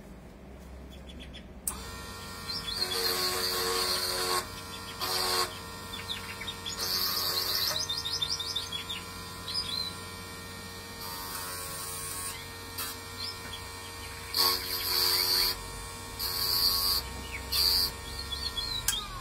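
Miniature benchtop lathe's small electric motor switched on about two seconds in and running with a steady whine. A hand-held cutting tool is pressed against the spinning workpiece in repeated scraping cuts, each lasting about a second.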